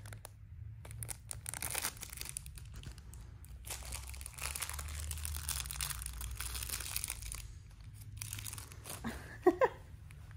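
A plastic snack packet of Haribo Starmix gummies being crinkled and torn open by hand: a steady run of crackles and rustles.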